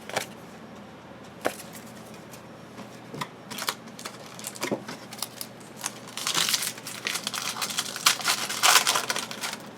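Foil trading-card pack wrappers crinkling and cards being handled: scattered light taps and rustles, with two longer crinkly stretches about six and eight seconds in.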